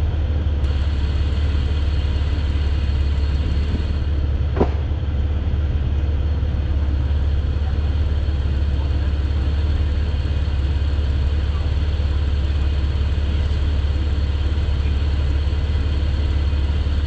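Off-road vehicle engine idling steadily, a low even hum, with one brief sharp click about four and a half seconds in.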